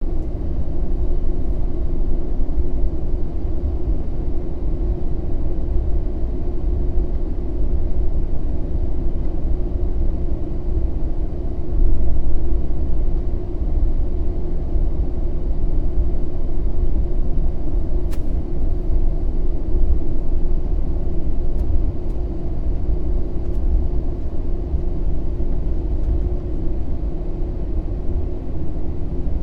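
Airbus A320 cabin noise on the ground: a steady low rumble from the jet engines at low power with a constant hum, heard from inside the cabin. There is no rising spool-up, so the airliner is taxiing rather than on its takeoff roll.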